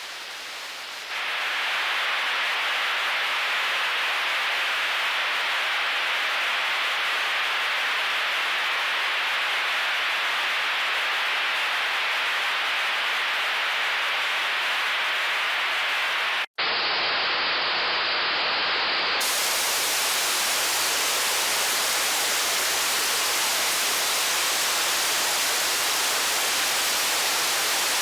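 White-noise TV static: a steady rushing hiss with no tone or rhythm. It gets louder about a second in, cuts out for an instant a little past the middle, and comes back brighter and harsher.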